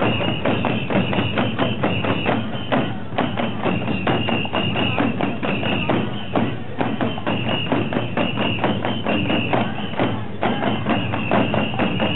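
Oeshiki mandō procession music: many hand-held fan drums (uchiwa daiko) beaten in a fast, steady rhythm, with a high ringing tone coming in repeated phrases over the drumming.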